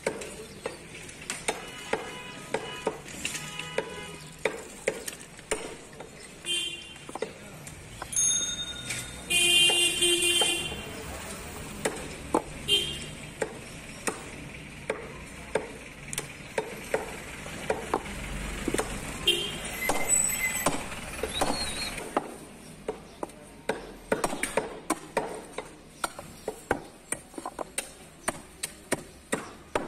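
Butcher's knife cutting beef from the bone on a wooden chopping block: a steady run of short, sharp knocks as the blade strikes the wood. A brief, loud pitched tone sounds about ten seconds in, among a few shorter ones.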